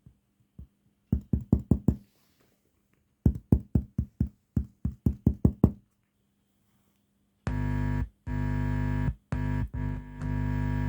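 Electronic music played through a small 30 W TV bass speaker: two runs of sharp, quick drum hits, then loud sustained synth chords chopped by short gaps.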